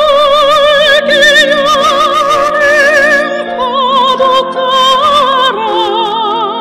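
Soprano singing a Korean art song in operatic style: long held notes with wide vibrato, stepping lower in the second half.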